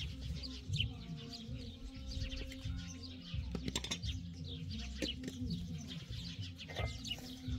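Small birds chirping quickly and continuously, many short falling chirps, over soft background music with a low line of held notes. A few light clinks of plates and cutlery.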